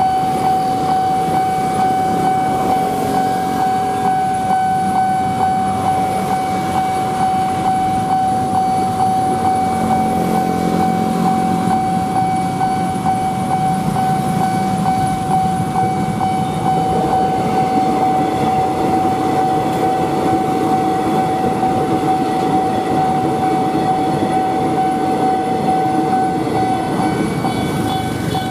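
Railway level-crossing warning alarm sounding without a break on one steady high tone, while an electric commuter train runs through the crossing with a rolling rumble underneath.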